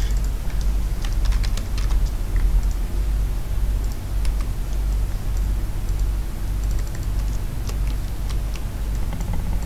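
Computer keyboard keys clicking in scattered short runs of keypresses, over a steady low hum.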